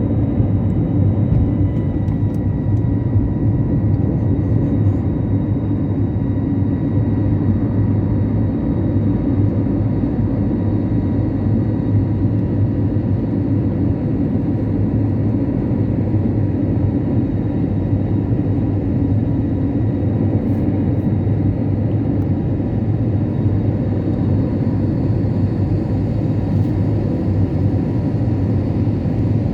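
Airliner engines running at steady power: a loud, even rumble with a few faint steady whining tones above it.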